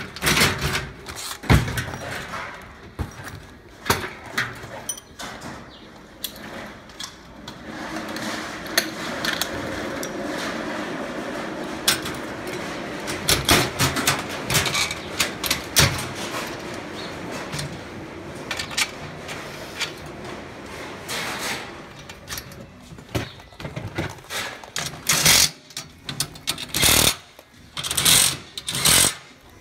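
Metal parts of a wheelbarrow clanking and clicking as they are fitted and bolted together, with a tool working in quick, repeated strokes through the middle stretch.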